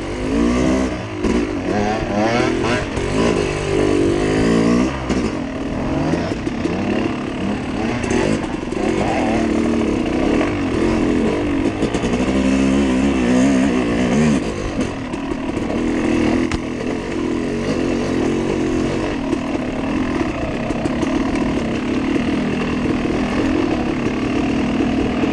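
Off-road dirt bike engine revving up and down through repeated throttle blips while the bike is ridden over rough trail, settling into steadier running for roughly the last ten seconds.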